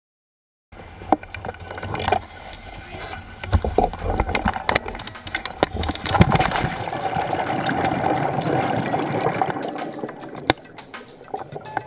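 Churning water and rising bubbles heard underwater, with many sharp clicks and pops, as a diver goes into the sea. It starts abruptly just under a second in and is loudest in the middle.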